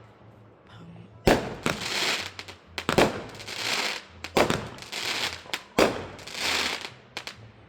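Fireworks bursting overhead: four loud bangs about a second and a half apart. Each bang is followed by a second or so of crackling hiss, and a few smaller pops come near the end.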